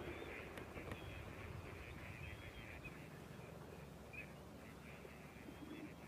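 A large flock of wild ducks calling on the water, many short overlapping calls and a few thin whistles, over a low rumble of wind noise.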